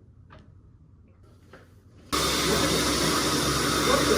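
A loud electric blower or fan-driven machine runs with a steady rushing hiss and a low hum. It cuts in abruptly about two seconds in, after a quiet stretch with a few faint taps.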